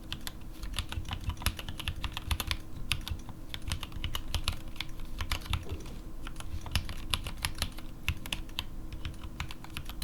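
Continuous fast typing on a mechanical keyboard with stock, unlubricated Gateron Black linear switches and SA-profile ABS keycaps: a dense run of key clacks.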